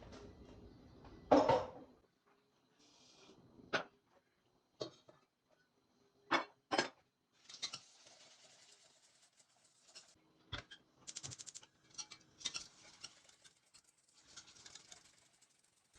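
Kitchen handling sounds with dishes and containers: a series of separate knocks and clinks, the loudest a little over a second in. Stretches of rustling and scraping follow from about eight seconds in.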